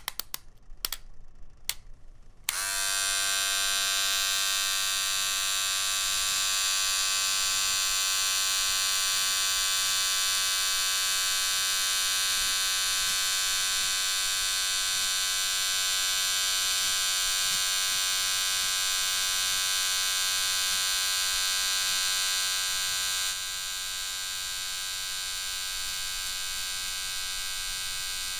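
A few clicks, then an electric beard trimmer switches on about two and a half seconds in and buzzes steadily as it trims a beard. The buzz drops a little in level near the end.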